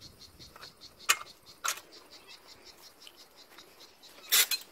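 Insects chirping in a steady high rhythm of about five pulses a second, with two sharp clicks after about a second and a louder short burst of noise near the end.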